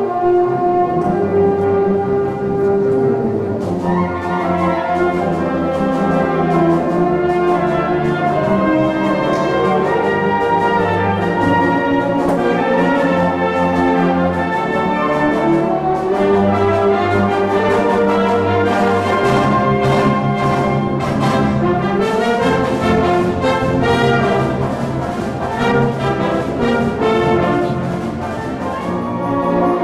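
A large school wind band playing a piece in full ensemble, with brass to the fore over woodwinds and percussion.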